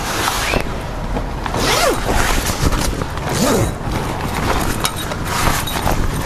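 Zip being drawn along the canvas wall of an inflatable camper-trailer air annex in about four rasping pulls, with the canvas rustling and scraping as it is pulled into place.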